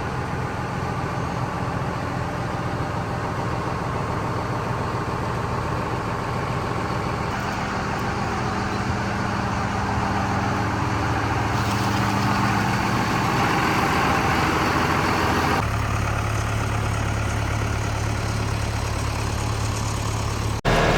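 Tractor engine running steadily. Its tone changes abruptly a few times, about a third, halfway and three quarters of the way through.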